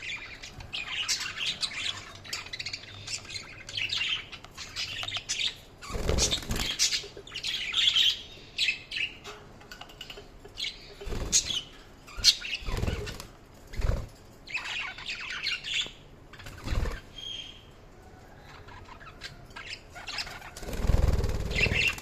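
Budgerigars chirping and twittering in quick high calls, broken by several short, louder bursts of wing flapping, the longest near the end.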